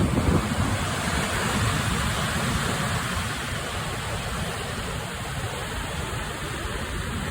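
Steady rushing noise with an unsteady low rumble underneath.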